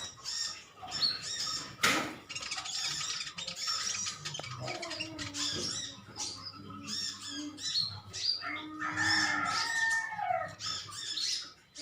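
Several sunbirds chirping in rapid, overlapping high twitters as they squabble, with one sharp click about two seconds in and some lower drawn-out calls in the second half.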